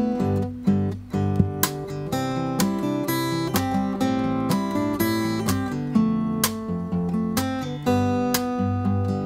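Fingerstyle acoustic guitar playing a pop melody instrumental, plucked notes with bass and chords ringing together at an even pace.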